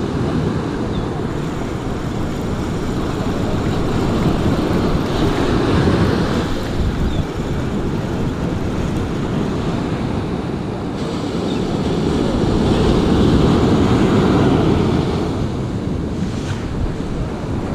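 Surf breaking and washing up the beach, with wind buffeting the microphone. The wash swells up twice, about a third of the way in and again past the middle.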